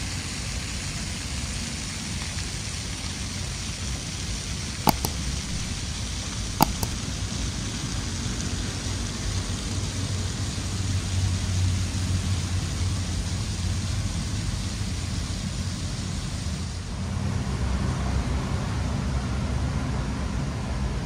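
Steady outdoor hiss over a low rumble of distant city traffic, swelling near the end, with two sharp clicks about two seconds apart.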